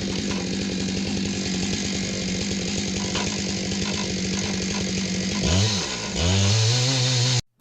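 Stihl MS661 chainsaw on an Alaskan mill running steadily at high revs. About five and a half seconds in its pitch dips and swings, settles at a new steady note, then cuts off suddenly near the end.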